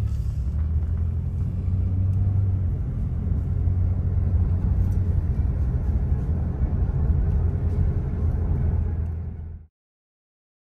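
Steady low rumble of a car driving, road and engine noise heard from inside the cabin, which cuts off abruptly near the end.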